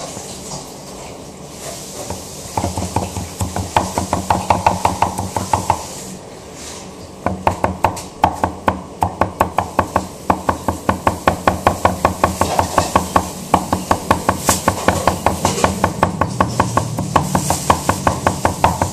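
Kitchen cleaver chopping rapidly on a cutting board, about five quick strokes a second: a short run, a brief pause, then a longer steady run.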